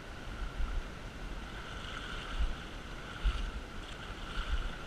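Shallow river running over gravel, a steady rush of water, with uneven low buffeting of wind on the microphone.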